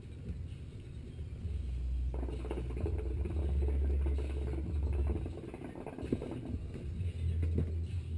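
A low, steady rumble with scratchy rustling over it, heavier from about two seconds in.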